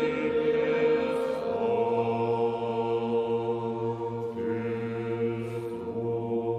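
Choir singing slow Orthodox-style chant in long held chords over a deep bass note, the chord shifting a few times.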